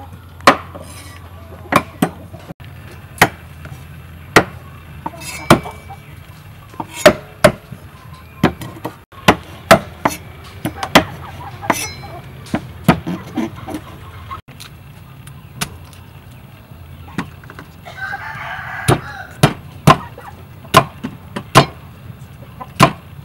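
Cleavers chopping on wooden chopping blocks: sharp knocks at irregular intervals, about one a second, as chicken feet and corn cobs are hacked apart. A rooster crows once, about three-quarters of the way through.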